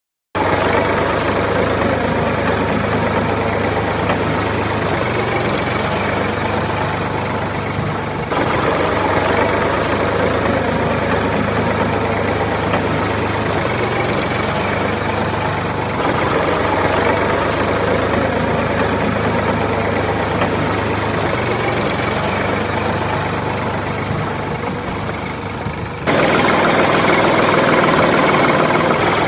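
Small engine running steadily with a knocking, idling sound. It starts abruptly just after silence and changes level suddenly three times, about 8, 16 and 26 seconds in.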